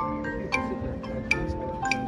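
Marching band playing: bright mallet-percussion notes from the front ensemble are struck several times and ring on over held chords.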